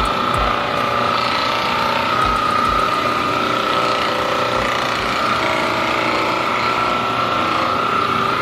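A small motorised tool running steadily, a mechanical rattling buzz with a constant high whine and a few low thuds.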